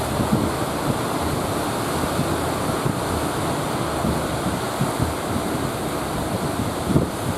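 Heavy surf in rough weather, with strong wind buffeting the microphone in gusts.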